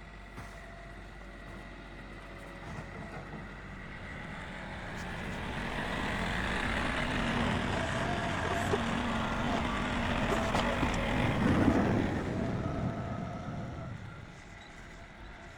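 A motor vehicle passes by: its engine and running noise grow louder over several seconds, peak about twelve seconds in, then fade away.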